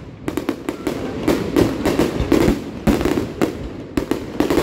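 Fireworks display: aerial shells bursting in a quick run of bangs, about two or three a second.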